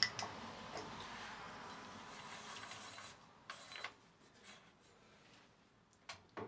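Milling machine table and quill being wound by hand, a steady dry rubbing of the slides and feed screw for about three seconds, followed by a few light clicks and knocks.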